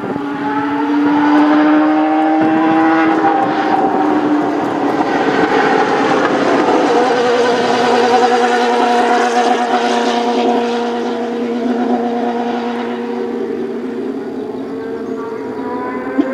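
Dallara GP2/05 racing car's V8 engine running hard on track, its note rising over the first few seconds, then holding steadier. It is loudest in the middle and fades toward the end.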